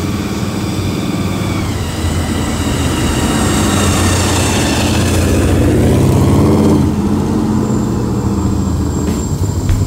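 A 1967 Dodge Coronet 440 with aftermarket headers drives past. The engine sound builds to its loudest about two-thirds of the way through as the car goes by, then drops in pitch and eases off as it drives away.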